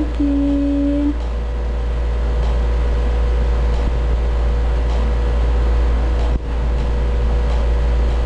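Steady low hum of hospital equipment beside an intubated infant, with a faint steady tone over it. A flat electronic beep lasts about a second just after the start.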